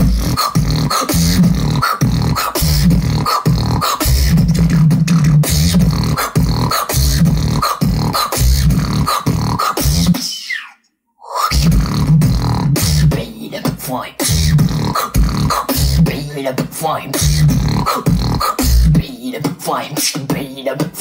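Solo human beatboxing: a fast rhythm of deep, held bass notes and sharp mouth clicks and snares. About halfway through it stops dead for about a second, then the routine starts again.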